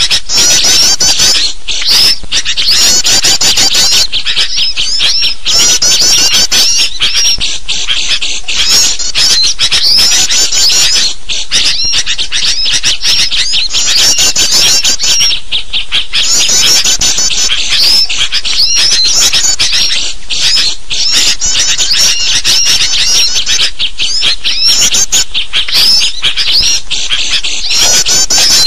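Dense, agitated chatter of small birds mixed with noisy sooty-headed bulbul calls: a continuous stream of fast, high-pitched chirps and squeaks, the kind of excited flock calling used as a lure to draw wild birds in.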